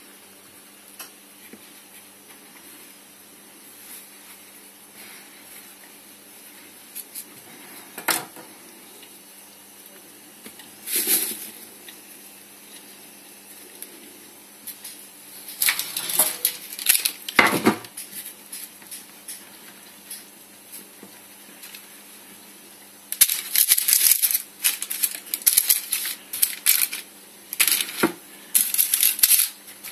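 Kitchen handling noises as puff pastry is rolled up around an apple filling: a few scattered taps and knocks, a short cluster of sharper knocks past the halfway point, then from about three-quarters through a dense run of clattering as the strudel goes onto a metal baking tray. A faint steady hum lies underneath.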